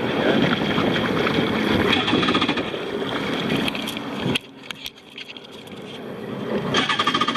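Jet ski engines running at idle on the water, with a steady rushing noise. The sound cuts off suddenly about four seconds in, and music fades in near the end.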